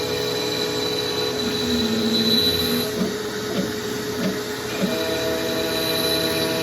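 CNC router running steadily as it cuts wood, with a constant high spindle whine and a changing, grinding cutting sound underneath as the bit moves through the material.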